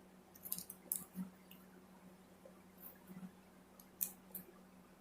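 Trading cards and packs being handled: scattered short, crisp rustles and clicks, with the loudest about a second in and again about four seconds in, over a faint steady hum.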